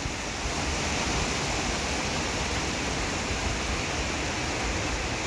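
Heavy rain pouring down as a thunderstorm breaks, an even, steady hiss.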